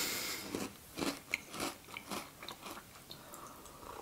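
Close-miked chewing of a small crunchy cereal cookie with apple pieces: a crisp crunch at the start, then scattered small crunches and mouth clicks.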